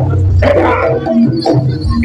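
Live jaranan accompaniment music: several pitched instruments sounding together over a strong low hum that fades about half a second in.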